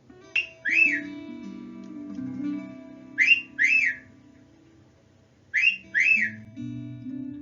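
A person whistling the same quick two-note phrase three times, each note swooping up and then down, over soft acoustic guitar background music.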